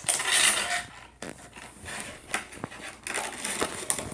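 Toy packaging being handled and pulled at: crinkly rustling with a few sharp clicks in between.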